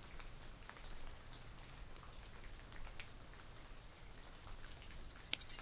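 Light rain, a steady faint patter with scattered drops ticking. Near the end comes a brief metallic jingling.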